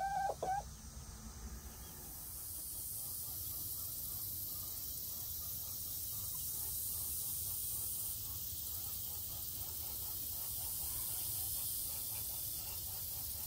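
A hen's call cuts off about half a second in. Then a steady high-pitched hiss of a summer insect chorus takes over.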